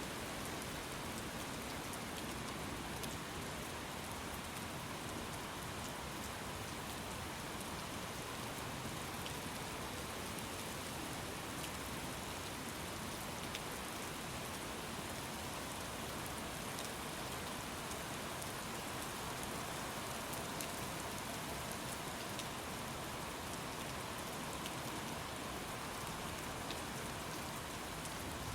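Steady rain falling, an even hiss with scattered small drop ticks and no thunder.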